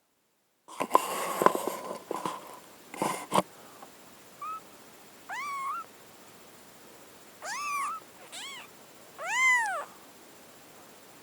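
Very young kitten mewing: about five short, high-pitched mews that rise and fall in pitch, the last the loudest. Near the start there are a couple of seconds of rustling with a few knocks.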